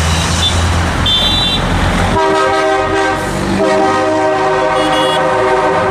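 Highway traffic rushing past. About two seconds in, a vehicle horn sounds a long, steady honk of roughly three and a half seconds with a brief break partway through, the kind of honk drivers give in support of a roadside rally.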